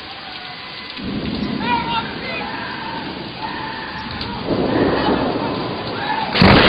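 Rain falling in a thunderstorm. Thunder starts rumbling about a second in and grows louder, then a sudden loud thunderclap breaks near the end.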